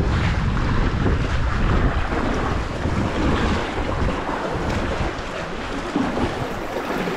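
Wind buffeting the camera microphone over small waves slapping and splashing against the rock cliffs beside a sea kayak.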